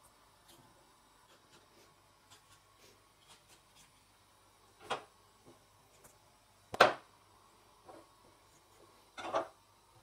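Cauliflower florets being snapped off the head by hand: three crisp cracks about two seconds apart in the second half, the middle one the loudest and the last a quick double. Faint ticks and rubs of knife and vegetables on a wooden cutting board before them.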